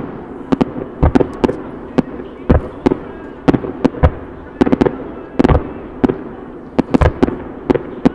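Fireworks bursting in a rapid, irregular barrage: sharp bangs several times a second, often two or three close together, over a continuous rumble.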